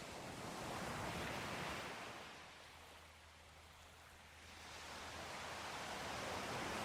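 Sea waves breaking and washing on a shore in slow surges: one wave swells about a second in, the sound ebbs near the middle, and the next wave builds through the second half.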